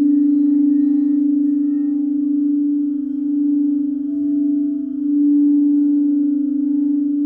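A singing bowl sustaining one steady low tone, with faint higher overtones, its loudness slowly swelling and ebbing.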